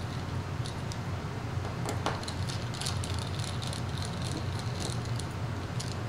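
Small T5 Torx screwdriver working the tiny screws of a phone's metal connector bracket: faint, scattered clicks and scrapes over a steady low hum.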